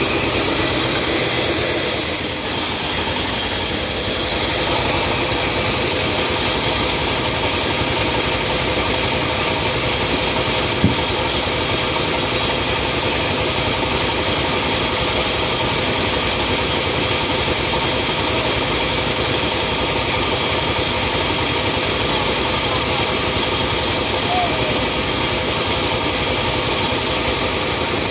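Sawmill machinery running steadily: a constant mechanical drone with several held tones over an even hiss. A single sharp tick comes about eleven seconds in.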